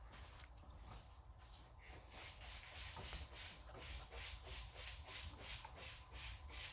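Faint rhythmic rubbing, about three strokes a second, as slime is worked and pressed by hand, growing steadier about two seconds in.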